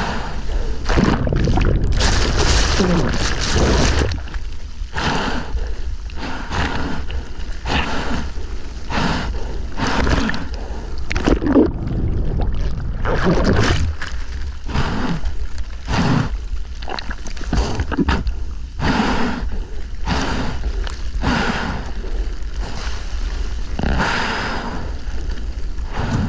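A surfboard being paddled out through surf: hands splash into the water about once a second. A dense rush of breaking whitewash comes in the first few seconds, over a steady low rumble of water and wind on the mic.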